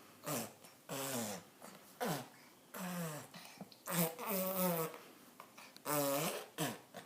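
A 9-month-old baby vocalising: a string of about seven short voiced grunts and squeals, roughly one a second, the pitch sliding up and down within each.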